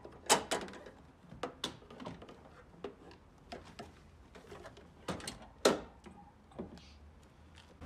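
Hard plastic frunk tub being lifted out of a car's front compartment: a string of short knocks and clacks of plastic against the car body, the loudest just after the start and again a little before six seconds.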